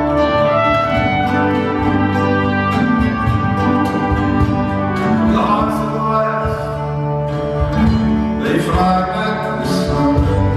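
Live acoustic folk band playing a song: acoustic guitars with a man singing lead into a microphone.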